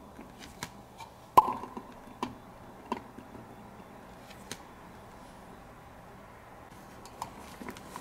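Scattered small plastic clicks and knocks of a toy fork and plastic play food being handled during pretend feeding, the sharpest knock about one and a half seconds in.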